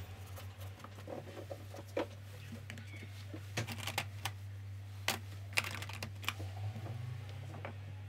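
Irregular light taps and clicks of a paintbrush against the paper and palette, over a steady low hum.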